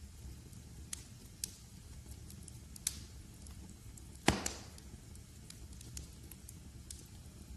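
Wood fire in a fireplace crackling: a steady low rumble with scattered sharp crackles, and one loud pop a little past the middle.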